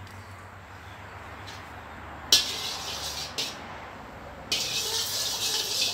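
A metal spatula knocks against a steel wok a little over two seconds in, then scrapes and swirls through hot melted lard. It comes in two bursts of hiss.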